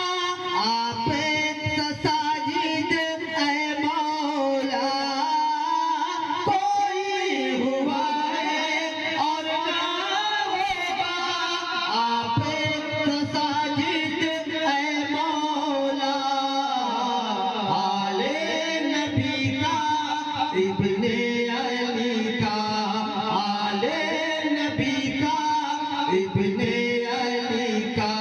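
A man singing a naat, an Urdu devotional poem, in long drawn-out melodic phrases, amplified through a microphone and stage loudspeakers.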